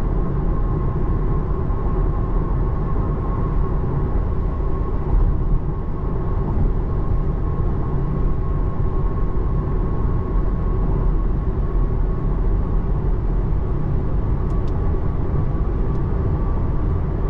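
Steady cabin road noise of a 2024 Tesla Model 3 electric car driving on a wet road: a continuous low rumble of tyres on wet pavement, with a thin steady tone above it.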